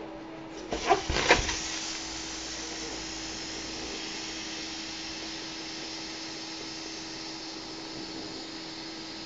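A few sharp bumps about a second in, then a steady rushing hiss that holds level, over a faint steady low hum.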